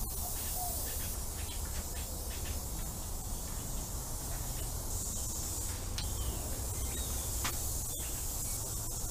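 Aerosol can of spray adhesive hissing in a long, nearly unbroken spray as glue is laid onto upholstery foam.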